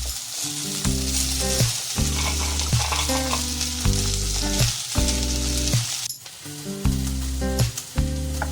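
Food frying in hot oil, a steady sizzle, over background music of held notes that change about once a second.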